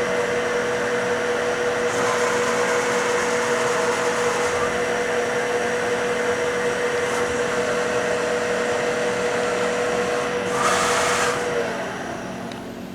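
Cleveland B6FC CNC bed mill running a program: its spindle and drives give a steady whine over a machine hum. A brief hiss comes near the end, then the whine stops and the sound drops away.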